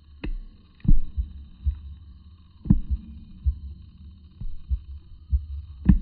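Irregular dull low thumps on a smartphone's microphone, the strongest about a second in, near three seconds and near the end, over a faint steady high whine.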